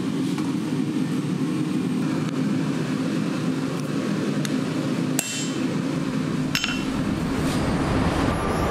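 Hammer blows on a maker's mark stamp held on a red-hot steel knife blade on an anvil, hot-stamping the mark. Two sharp ringing metallic strikes come a little past halfway, after a few lighter knocks, over steady low background noise.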